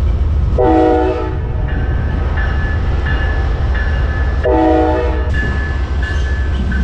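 Amtrak Sunset Limited locomotive sounding two short blasts of its multi-note horn, the signal that the train is about to move off, over a heavy low engine rumble. A bell rings steadily about one and a half times a second from just after the first blast.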